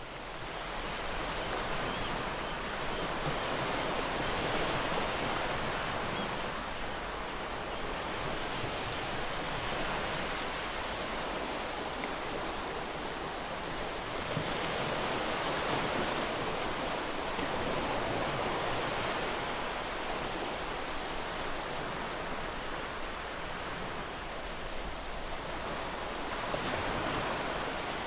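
Ocean surf breaking and washing on a shore, a continuous rushing that swells and eases every few seconds as waves come in. It fades up from silence at the very start.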